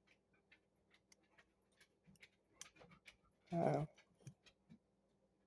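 Faint, scattered clicks and taps of the plastic parts of a Quintus Prime deluxe Transformers figure as it is handled and folded. A short vocal murmur comes about three and a half seconds in.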